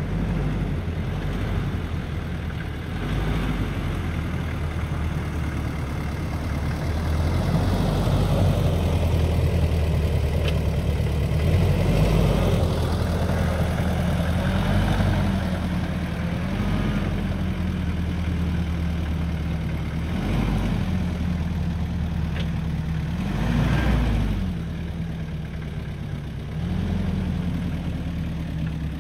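1997 Jeep Cherokee XJ's 2.5 four-cylinder turbo diesel engine running at low revs as the Jeep crawls over muddy ground. In the second half the revs rise briefly four times with short bursts of throttle.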